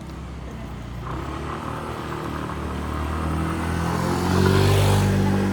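A motor vehicle's engine running and drawing closer, growing steadily louder to a peak near the end.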